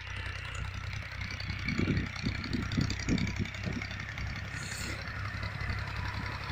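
Farm tractor's diesel engine running steadily close by, with a run of uneven low bumps in the sound from about two to four seconds in.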